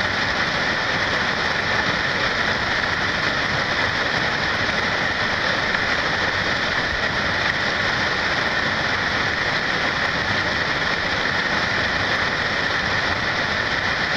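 Whitewater rapid rushing steadily over rocks, a constant dense rush of water with no breaks.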